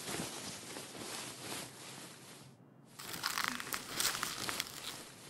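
Packaging being handled: a soft, even rustle, then denser, crackly crinkling from about three seconds in.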